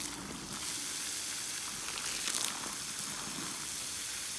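Steady hiss of soapy water spraying from a garden hose turned on full blast.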